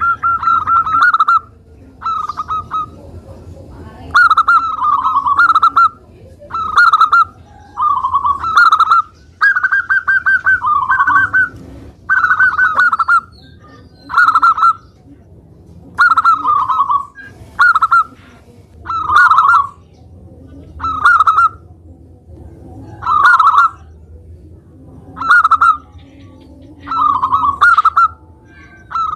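Zebra dove (perkutut) in full song: a long run of short, rolling coo phrases, one every second or two, some ending with a slight drop in pitch.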